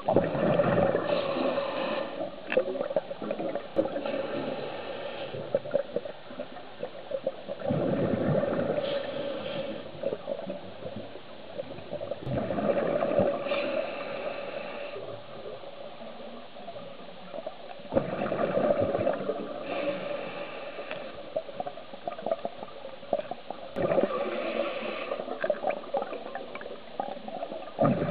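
Scuba diver breathing through a regulator underwater: exhaled bubbles gurgling, then the hiss of the next breath, about five breaths in a slow, even cycle.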